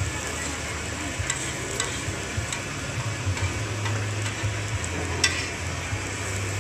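Shredded kebab meat sizzling on a round flat griddle, a steady frying hiss, with metal tongs clicking against the hot plate a few times.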